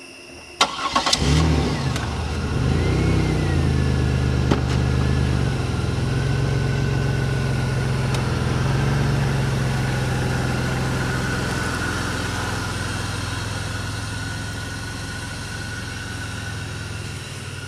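A car door shuts with a bang, then the car's engine starts about a second later, revs unevenly for a few seconds and settles into steady running with a thin high whine over it, slowly getting quieter as the car moves off.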